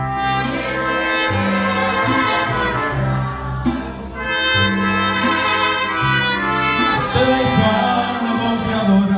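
Mariachi band playing an instrumental passage, trumpets leading over a repeating low bass line.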